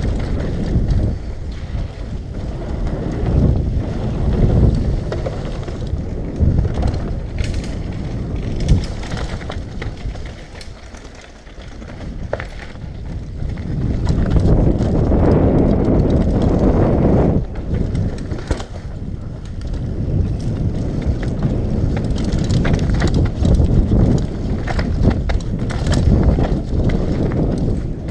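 Wind buffeting a helmet-mounted action camera's microphone during a fast downhill mountain bike descent, with tyres rolling over dirt and rocks and the full-suspension bike rattling in sharp clicks. It dies down briefly about eleven seconds in, then builds again.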